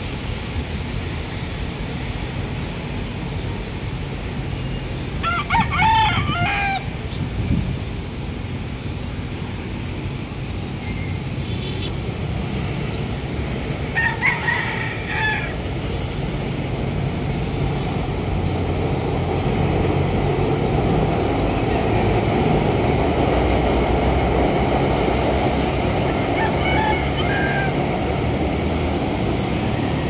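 Rooster crowing: one long crow about five seconds in, another about fourteen seconds in, and a fainter one near the end, over a steady low rumble of traffic.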